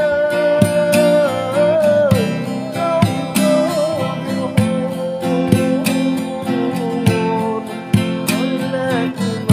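Acoustic guitar strummed in a steady rhythm under a man's voice singing a devotional Arabic sholawat, drawing out long, wavering held notes that slide between pitches.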